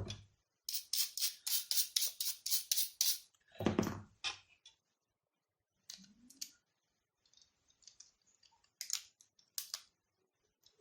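Small plastic clicks and taps from handling an Xbox controller during reassembly. A quick run of about ten clicks comes at around four a second, then a single knock, then a few scattered clicks.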